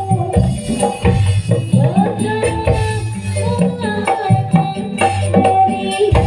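Loud live music played through a PA sound system, driven by hand-drum percussion strikes under a held melodic line.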